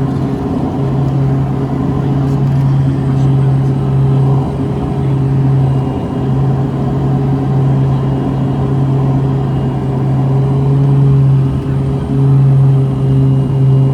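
Steady drone of a King Air's twin turboprop engines and propellers, heard as a loud low hum with a few overtones and brief dips in level.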